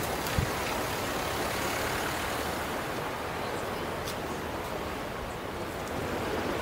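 A car driving past on the road over a steady rushing background noise, with a brief low thump about half a second in.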